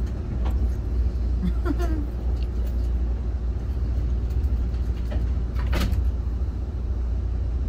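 Steady low rumble inside a passenger rail coach as the train backs slowly through the yard, with a few light clicks and one sharp knock about six seconds in.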